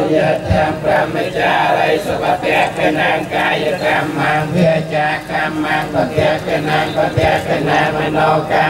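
A group of Buddhist monks chanting together in a steady, droning unison.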